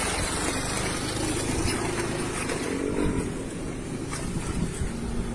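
A motor engine idling steadily, a low, even hum under outdoor noise.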